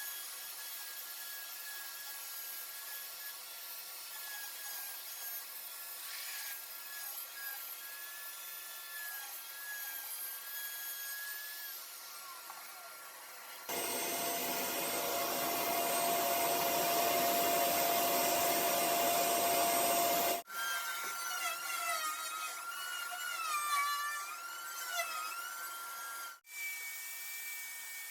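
Power tools cutting and sanding MDF, heard in several short clips cut together. The middle clip is a louder motor-driven cut lasting about seven seconds, with a steady whine over the noise.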